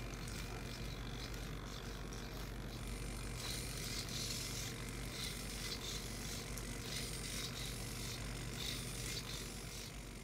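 Hexapod robot's hobby servos whirring in short repeated bursts as its legs step, starting about three seconds in, over a steady low hum.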